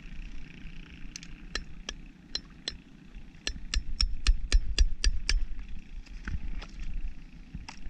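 Hammer tapping and chipping at oyster shells crusted on a block: light, sharp knocks, a few scattered at first, then a quick run of about ten at roughly six a second in the middle, over a low outdoor rumble.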